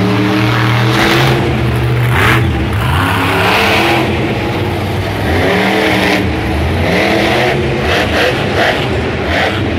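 Kraken monster truck's supercharged V8 engine running and revving repeatedly as the truck drives the dirt course, the engine pitch climbing and dropping several times.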